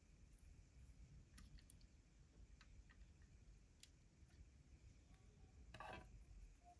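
Near silence with a few faint, small clicks of plastic scale-model parts being handled as a cable is fitted to the handlebars, and one short, slightly louder rustling click about six seconds in.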